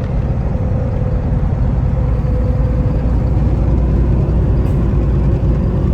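Semi truck driving at road speed, heard from inside the cab: a steady, loud low engine drone and road rumble.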